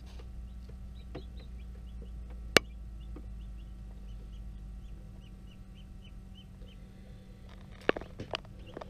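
Newly hatched chicks peeping inside an incubator: short, high, falling cheeps that repeat over and over, over a steady low hum from the incubator. A single sharp click about two and a half seconds in is the loudest sound, with a few more clicks near the end.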